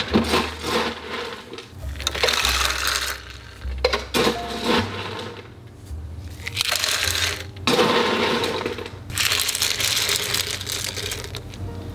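Ice cubes poured into a glass of iced coffee in several pours, clattering against the glass and cracking as they hit the liquid.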